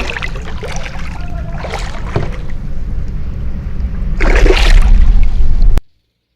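Water splashing in several surges, the largest about four seconds in, typical of a hooked fish thrashing at the surface. A steady low rumble runs under it, and the sound cuts off abruptly near the end.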